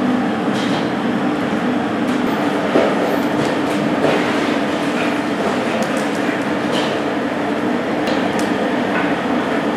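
A steady, even roar of noise with a few light clinks and knocks over it.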